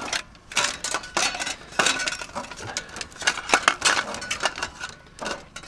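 Metal objects clinking and knocking together as they are picked up and handled, a few strikes ringing briefly.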